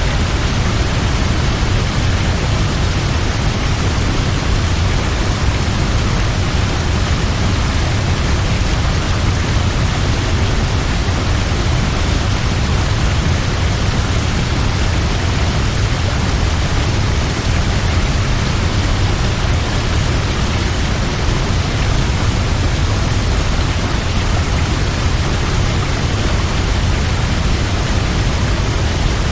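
Large waterfall: a steady, loud rush of falling water with a deep low rumble underneath.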